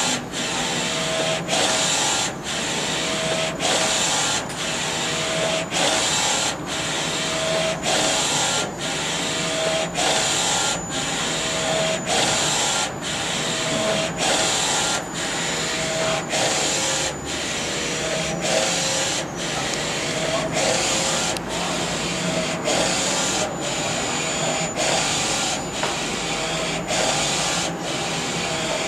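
Print carriage of an NC-610A digital textile printer shuttling back and forth over a T-shirt as it prints. Each pass is a steady whir with a motor whine, broken by a short gap at each reversal, about three passes every two seconds.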